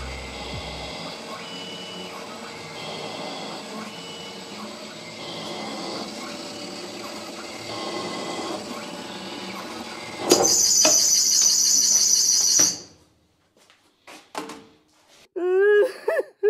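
Converted mini lathe cutting a thread on a small steel pin: steady cutting noise with a faint intermittent squeal. About ten seconds in, a loud high-pitched screech lasts about two and a half seconds and cuts off abruptly. Near the end comes a short wavering, wailing sound.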